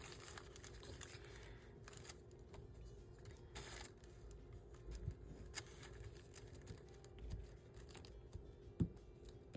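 Faint rustling and light tapping of paper being handled on a desk, with a few sharper ticks near the end, over a steady low hum.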